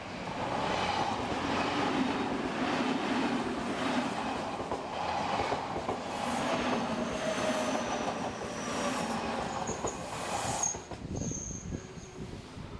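An Odakyu Line electric train passes close by: steady wheel-and-rail running noise with a thin high wheel squeal near the middle. The noise drops away suddenly near the end as the train clears.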